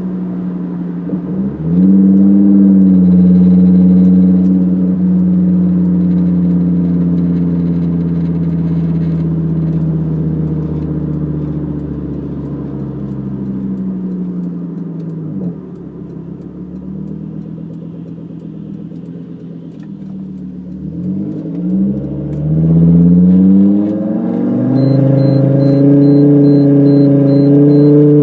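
Volvo S60R's turbocharged inline five heard from inside the cabin through a custom exhaust with a Dynomax Bullet resonator and no muffler. It revs up about two seconds in and holds a throaty cruising drone, eases off around the middle, then revs up again in two rising pulls near the end.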